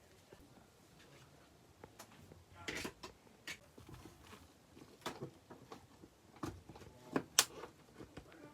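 Irregular handling noises of a product and its packaging being unboxed: scattered light clicks and knocks with a few short rustles, the sharpest click near the end.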